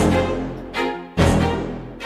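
Instrumental backing of a rap song with no vocals: pitched notes struck one after another, each fading away, over deep bass notes that hit hardest near the start and a little past halfway.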